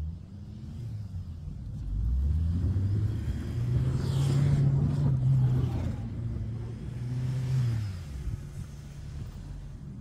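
Honda Step Wagon minivan on a snowy road, its engine revving up, held high and loudest in the middle, then dropping away near the end as the van comes past, with a hiss of tyres in the snow at its loudest.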